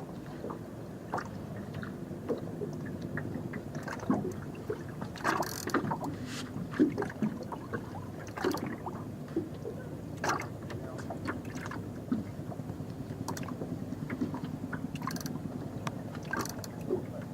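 Water gurgling and lapping against a small fishing boat's hull, with scattered knocks and clicks over a steady low hum.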